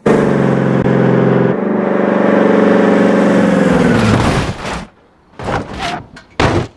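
A motor runs at a steady pitch, then winds down with a falling pitch and dies away about four and a half seconds in. A few short, separate noises follow near the end.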